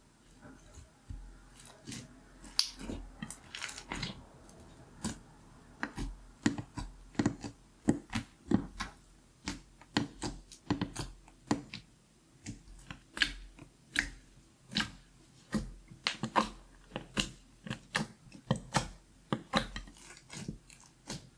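Glitter slime being handled by hand, making an uneven run of sharp clicks and pops, a few each second, with short quieter gaps.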